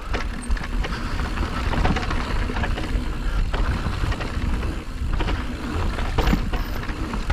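Wind rumbling on the microphone, with tyres clattering and knocking over rough dirt trail, as an electric mountain bike is ridden.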